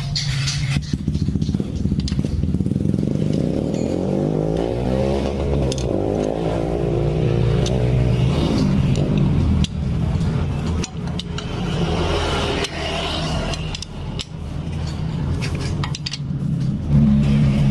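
A motor vehicle engine running steadily, its pitch rising and falling over the middle seconds, with scattered light metal clicks and scrapes of hand tools on the motorcycle engine.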